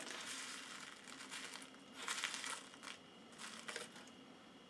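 Faint crinkling of a paper sachet of citric acid as a teaspoon digs into it and scoops out the crystals, in a few short rustles.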